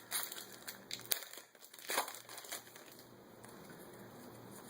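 Foil wrapper of a Yu-Gi-Oh booster pack crinkling as it is handled and torn open. It gives a quick string of crackles for about the first three seconds, then goes quieter.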